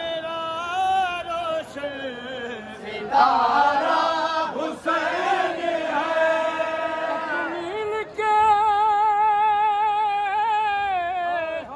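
Unaccompanied male voice singing a devotional qasida in long, wavering held notes, with other voices joining in around the middle. A long high note is held from about eight seconds until just before the end.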